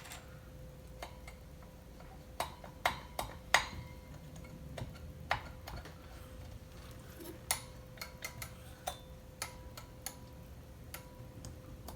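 Irregular metallic clicks and taps of tools and parts handled while a chainsaw's clutch cover is being worked off, with a cluster of sharper clicks a few seconds in, then scattered ones, over a faint steady hum.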